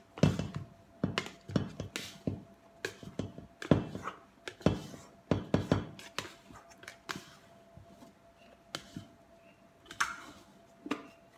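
A plastic bowl scraper scraping and knocking around the inside of a stainless-steel mixing bowl, freeing sticky bread dough, with the metal bowl clunking as it is tipped and shifted on the table. The knocks and scrapes come irregularly, sparser in the middle and picking up again near the end.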